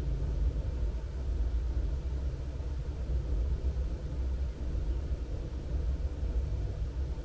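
Low, unsteady rumble of wind buffeting the microphone, with no distinct events.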